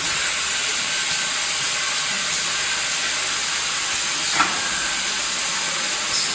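Steady hiss of a running automatic bottle filling and capping line, with a few faint ticks and one short, sharper tap about four and a half seconds in.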